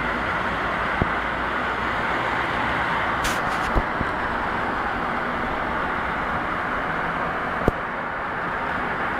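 Steady traffic noise from cars and trucks moving around a roundabout, an even rushing hum, broken by three short sharp clicks.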